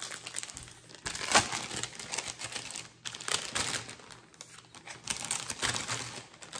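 Crinkling and rustling of cross-stitch projects being handled and shuffled, with a sharper crackle about a second and a half in.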